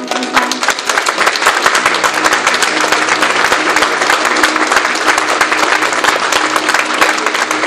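Audience applauding, loud and steady, as the music stops.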